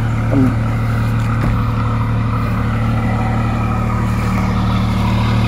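Mercedes-Benz OF 1623 bus's front-mounted diesel engine idling steadily with a low, even hum.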